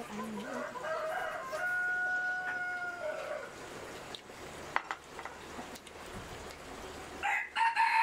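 A rooster crowing once: one long held call lasting about three seconds that trails off at the end. A single sharp click follows, and a few short calls come near the end.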